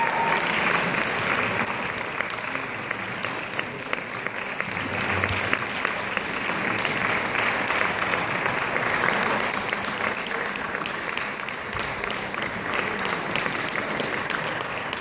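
Audience applause: many hands clapping steadily, easing off slightly near the end.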